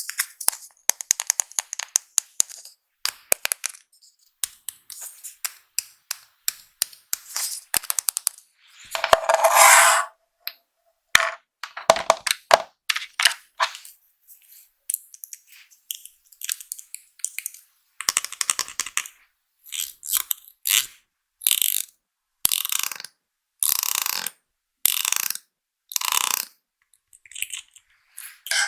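Close-up handling of small plastic makeup items and packaging: sharp clicks and taps, with short scratchy scraping or rustling strokes. There is a longer scrape about nine seconds in, and a run of short strokes about one a second in the second half.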